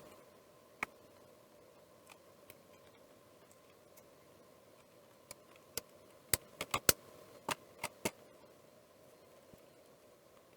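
Sharp clicks and taps of small plastic parts being handled and fitted together: a single click about a second in, then a quick run of about eight clicks near the middle.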